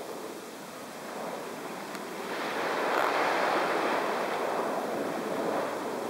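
Steady rushing noise of small waves and wind on a beach, swelling louder for a couple of seconds from about two seconds in.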